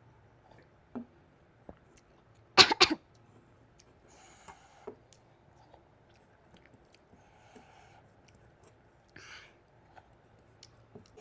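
Close-up eating sounds of panta bhat with raw onion and green chilli: soft chewing and mouth noises, with a loud burst of sharp cracks about two and a half seconds in and a few short breathy hisses later.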